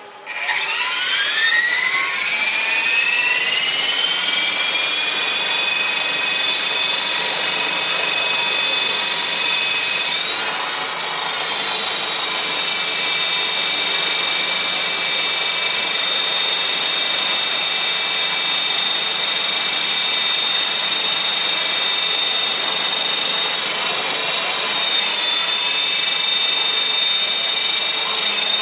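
CopterX 450 electric RC helicopter spooling up on a test bench: a whine that rises in pitch over the first few seconds, then settles into a steady high-pitched whine from motor, gears and rotor, with a brief rise in pitch about ten seconds in.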